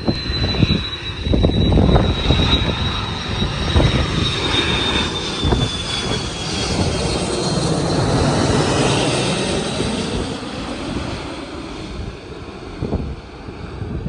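Airliner passing low overhead on its landing approach: engine noise with a high whine that slowly falls in pitch, swelling to a peak about halfway through and then fading as it moves away.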